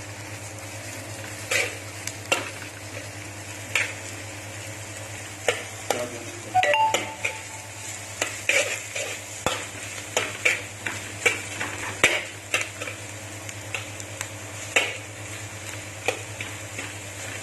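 Sliced onions frying in hot mustard oil in a kadhai over high heat, sizzling steadily, while a spatula scrapes and knocks against the pan every second or so as they are stirred.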